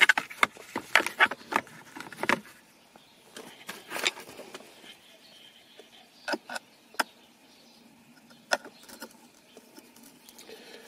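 Handling clicks and taps of hard plastic: a quick run of clicks as a work light is handled and set down in the centre console, then a few isolated clicks as a screwdriver is worked into the rear console screw.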